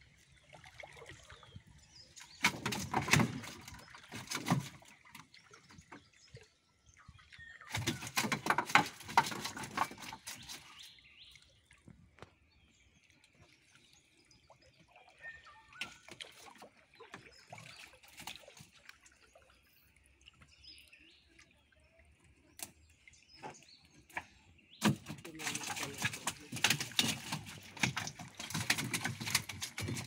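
Water pouring and dripping off a wet fishing net as it is hauled by hand out of a river into a wooden canoe, in three bursts with quieter spells between. A faint steady high tone runs through the middle stretch.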